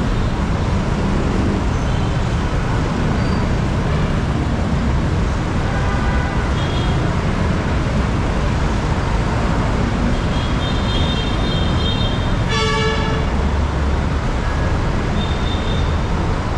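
Steady street traffic with a low engine rumble and a few short horn toots, the clearest a brief honk about thirteen seconds in.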